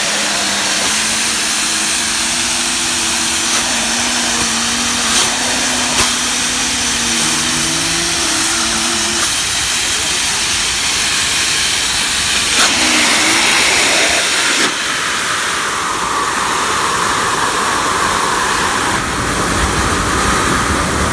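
Air rushing out of the holes of a concrete vent in the ground, a loud steady hiss. For about the first nine seconds a pair of steady low tones hums along with it.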